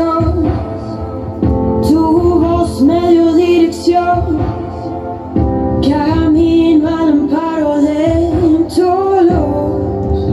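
A woman singing a Spanish-language Christian worship song in a slow, sustained melody over an instrumental accompaniment of held chords.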